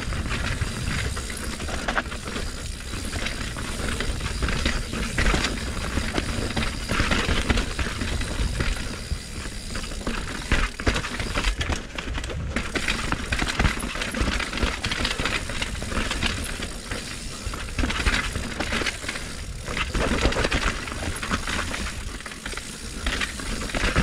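A 2020 Norco Torrent HT S2 steel hardtail mountain bike rattling and clattering as it rides down a rough, rocky trail: a continuous run of metallic clinks and knocks from the bike, with a low rumble underneath.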